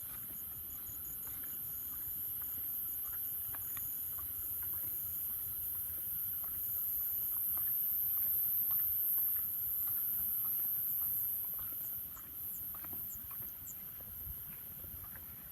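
A chorus of night insects trilling steadily at a very high pitch, swelling a little partway through, with a faster pulsing chirp beneath it and scattered short frog calls.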